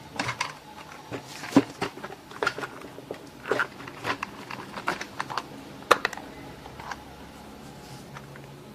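Irregular clicks and taps of small hard objects being handled: a clear plastic case and steel drill bits picked up and set down on a workbench, the sharpest click about six seconds in. The tapping stops about seven seconds in.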